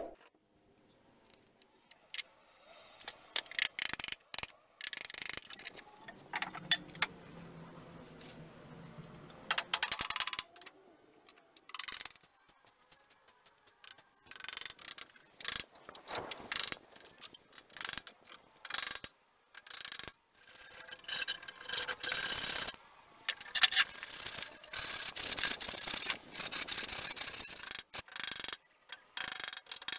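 Claw hammer driving nails into timber slats on a wooden frame: runs of quick, sharp strikes broken by short pauses.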